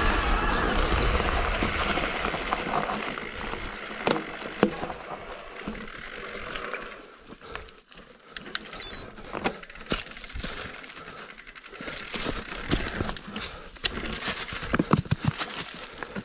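Mountain bike rolling, with wind rushing on the microphone that fades over the first seven seconds or so as the bike slows nearly to a stop. After that, scattered sharp clicks and rattles of the bike and gear.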